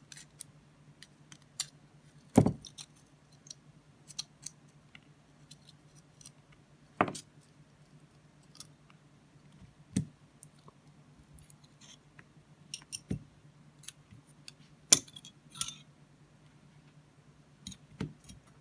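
Small metal parts of a titanium-handled folding knife and hand tools clicking and knocking as the knife is taken apart, about eight separate sharp clicks with the loudest about two seconds in and near the end, over a faint steady low hum.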